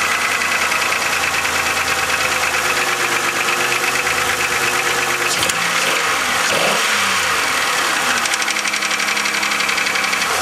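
2000 Chevrolet Malibu's 3100 3.1-litre pushrod V6 running with a fast, even knocking clatter, which the owner suspects is piston slap. The engine speed briefly rises and falls about halfway through.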